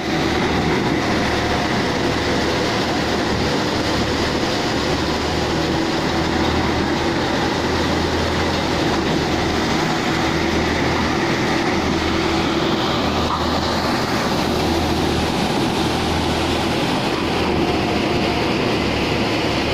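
A grain thresher running steadily under load: a loud, continuous mechanical din from its drum and fan, with a pulsing low hum, as chopped straw is blown out through its delivery pipe.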